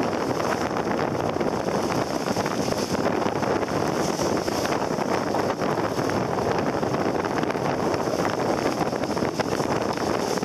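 Strong wind buffeting the microphone in a steady roar, over the rush of a choppy, whitecapped sea.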